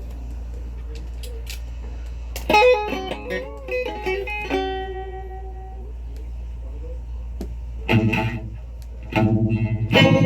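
A guitar played with a pick: a chord and a few picked single notes about two and a half seconds in, a pause, then strummed chords near the end, over a steady low hum.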